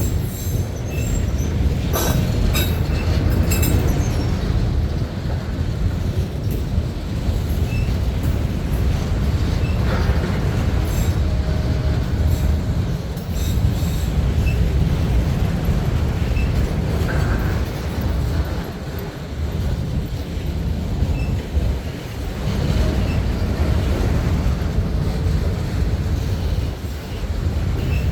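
CSX freight train rolling past, a steady heavy rumble of wheels on rail with a few brief wheel squeals.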